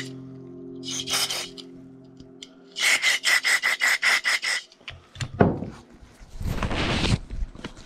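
Short hissing blasts of pressurized spray into a small snowmobile carburetor during cleaning: one brief blast, then a quick run of about ten short blasts. Near the end there is clattering handling noise as the carburetor is set down.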